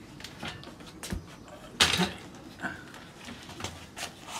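A car wheel with its tyre fitted being handled and turned up on edge on a wooden block: scattered knocks and rustles, with one louder bump about two seconds in.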